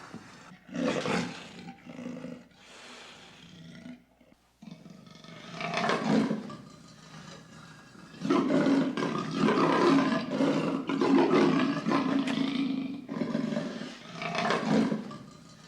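Edited big-cat roar and growl sound effects, mixed from leopard, cougar and lion roars. A few short snarls come first, then a brief pause about four seconds in. After that comes a rising roar, then a long, nearly unbroken run of roaring, and one last roar near the end.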